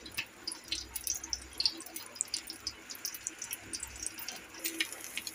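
Egg-coated mutton shami kababs shallow-frying in oil on a flat iron tawa: the oil sizzling with a steady run of small, irregular crackles and pops.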